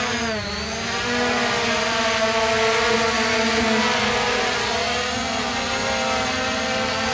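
Holy Stone HS700E quadcopter's brushless motors and propellers whining as it lifts off and hovers: a steady multi-tone whine whose pitch dips briefly just after the start, then holds even.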